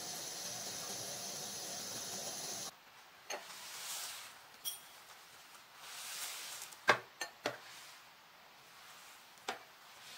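Steady hiss of a pot of rice boiling in its starchy water, cut off sharply after a few seconds. It gives way to a series of sharp clinks and taps on a glass mixing bowl, loudest about seven seconds in as three come in quick succession.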